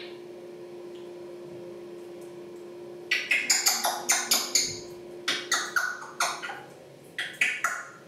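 A run of short, sharp clicks from an African grey parrot, several a second, starting about three seconds in and stopping near the end, over a steady low hum.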